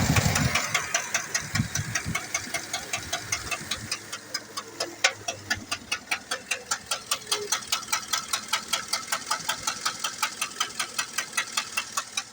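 2008 Chevrolet Tahoe's 5.3-litre V8 engine running with a sharp, evenly spaced ticking knock, several a second, that keeps time with the engine: the engine noise being diagnosed. It is loudest at the start, then settles to a steady idle.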